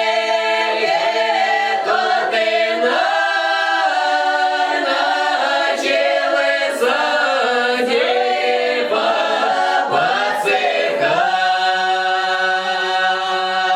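Folk choir of several voices singing a drawn-out Russian lyrical song a cappella. The melody winds through long melismas on a single word, then settles on a long held chord near the end.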